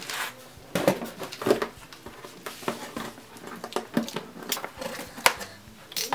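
Cardboard packaging being handled: a box lid and inner cardboard tray scraping, rustling and knocking irregularly as hands work at the twist ties holding the contents.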